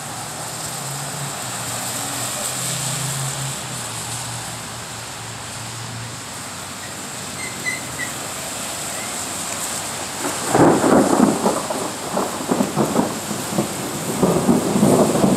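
Thunder rolling in about ten seconds in: a loud, crackling rumble that swells and breaks up over several seconds. Beneath it is a steady background hiss.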